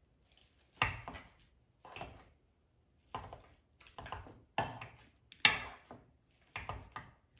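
Hand-held wire potato masher pushing down through boiled potatoes and knocking against the mixing bowl, in about a dozen irregular strokes, one or two a second.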